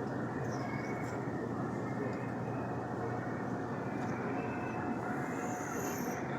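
Steady supermarket background noise: an even low rumble with a faint hum under it, no clear single event.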